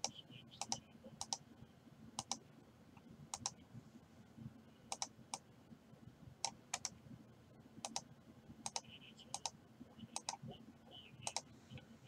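Faint, irregular clicking at a computer, about once a second and often in quick pairs.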